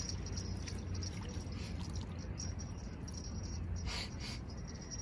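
Faint clicking and rattling of a fishing reel winding in a hooked small fish, over a steady low hum. About four seconds in come two short rustling sounds as the fish is lifted out of the water to the bank.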